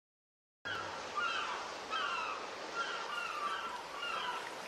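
Seagulls crying: repeated short, falling calls over a steady background hiss, cutting in suddenly just under a second in after silence.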